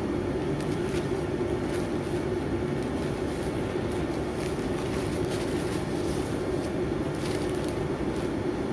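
A steady low droning hum, with a few faint rustles of stiff paper sheets being lifted and laid down.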